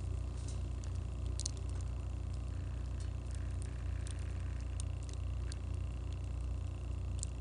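Wood campfire crackling, with scattered sharp pops and snaps at irregular moments over a steady low rumble.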